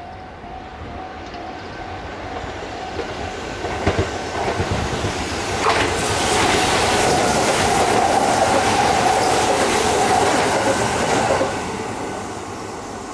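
Kintetsu Aoniyoshi limited express train approaching and passing close by, its wheels clattering over rail joints. The sound builds for about six seconds, stays loud with a steady whine for about five more, then drops off suddenly as the last car goes by.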